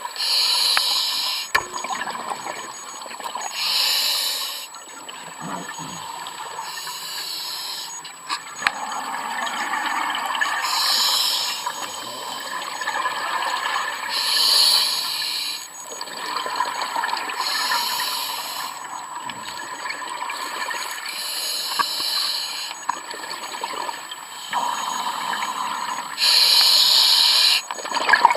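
Scuba diver breathing through a regulator underwater: a regular cycle, about every three to four seconds, of a hiss on the inhalation and a rush of bubbling exhaled air.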